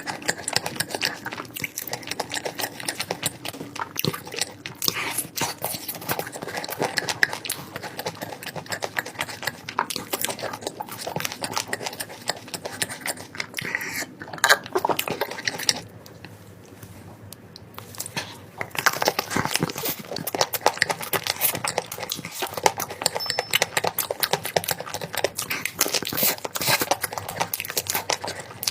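Chewing and crunching: dense, rapid clicks, with a short quieter lull a little past halfway.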